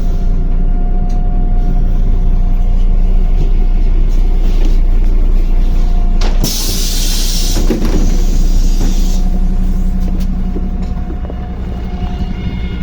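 Interior of a MAZ-105 city bus: the diesel engine drones steadily. About halfway through, a loud hiss of compressed air lasts a few seconds, from the bus's pneumatic brakes or doors.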